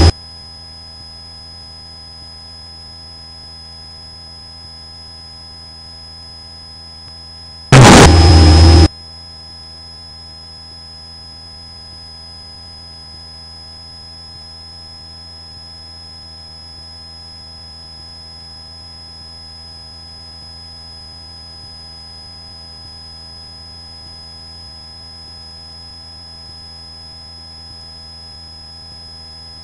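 Steady electrical hum and high whine on a light aircraft's intercom audio, made of many steady tones. It is broken about eight seconds in by a loud burst of noise lasting about a second.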